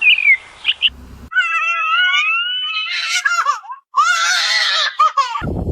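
High-pitched screaming: a short falling chirp, then two long, wavering screams about a second and a half apart.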